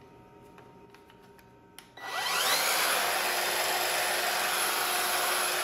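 Evolution R185CMS-Li 18-volt cordless sliding mitre saw switched on with a click about two seconds in. Its motor and blade spin up with a quickly rising whine, then run steadily at full speed without cutting.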